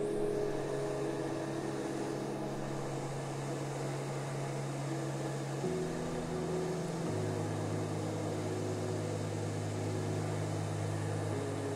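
Hot air rework gun blowing a steady hiss of air onto a circuit board component, under background music of sustained low chords that change a few times.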